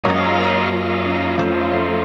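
Background music of sustained, layered chords that starts abruptly; the bass note changes about two-thirds of the way in.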